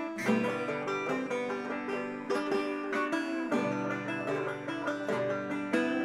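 Background music: an upbeat acoustic track of quickly picked banjo and guitar.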